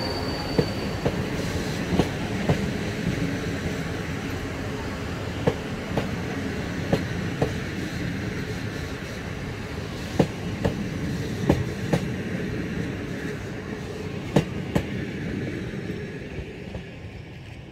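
Railway passenger coaches rolling past on the track: a steady rumble of wheels on rail with sharp clicks, often in pairs, as the wheelsets cross rail joints. It fades near the end.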